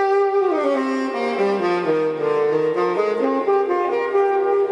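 Background music led by a saxophone, its melody stepping down in pitch and then climbing back up.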